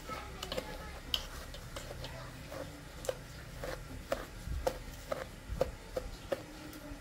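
Metal spatula stirring dry white granules in a stainless steel pot, with light metal clinks against the pot about twice a second.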